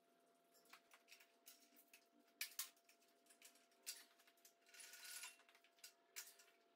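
Near silence broken by a handful of faint clicks and light clatter, two close together about two and a half seconds in, as the fuel rail, injectors and wiring harness are worked loose from an intake manifold by hand.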